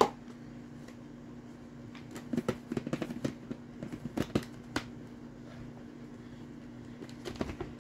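Short plastic clicks and knocks from a plastic pull-cord food chopper as its lid is fitted and handled, in two clusters about two and four seconds in and again near the end. A steady low hum runs underneath.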